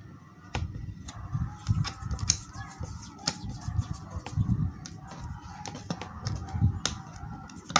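Black PVC insulating tape being pulled off the roll and wound round a twisted electrical wire joint: irregular crackling and clicking of the tape, with dull thumps of hands handling the wires.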